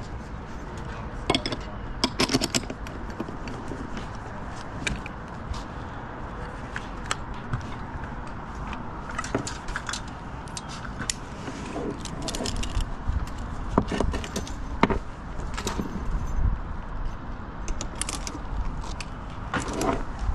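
Metal rope-access hardware (carabiners and clips on the rope and bucket) clinking and clicking irregularly as it is handled, over a steady low rumble.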